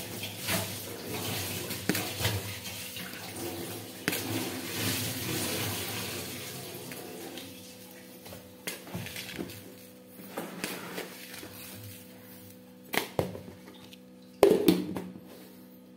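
Sugar poured from a plastic container onto chopped fruit in a blender jar: a steady granular hiss for several seconds that fades out, followed by a couple of sharp knocks near the end.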